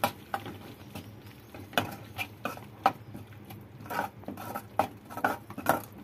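Metal spoon stirring thick tomato-onion masala in a metal kadhai, with irregular clinks and scrapes of spoon on pan.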